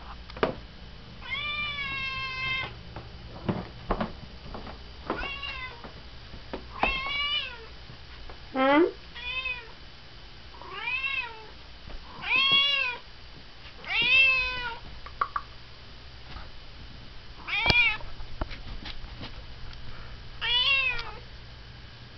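Siamese-type cat meowing over and over, about nine loud, piercing calls that each rise and fall in pitch, one every two seconds or so, the second one long and drawn out. She is demanding her dinner.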